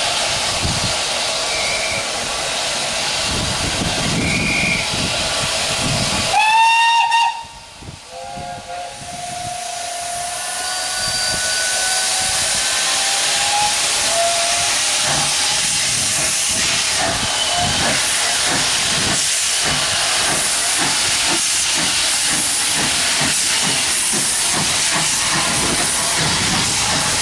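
Steam locomotive whistle, one short blast, followed by a steady, strengthening hiss of steam escaping from the SECR H class tank engine's cylinder drain cocks as it stands ready to move off.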